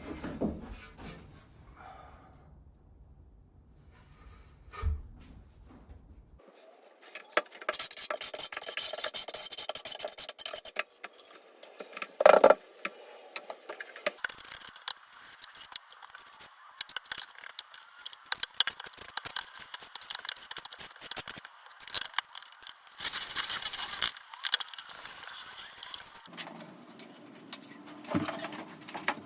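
Scraping and rubbing of a trowel working thinset mortar during floor tiling, with a sharp knock about twelve seconds in.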